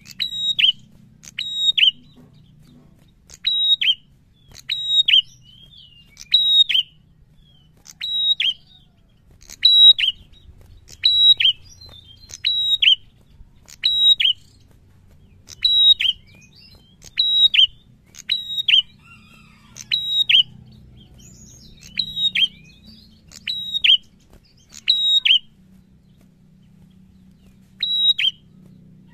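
A caged prenjak singing its loud, repeated call. Each phrase is a sharp high note that drops in pitch, coming every one to two seconds, with a pause of a couple of seconds near the end.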